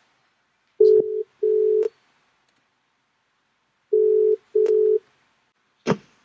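Phone ringback tone played through the car's audio system from an outgoing CarPlay call: two double rings, each a pair of short, steady low beeps, about three seconds apart, then a short click near the end.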